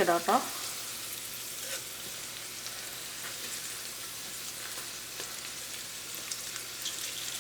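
Okra pieces shallow-frying in hot oil in a pan: a steady sizzle with scattered small pops.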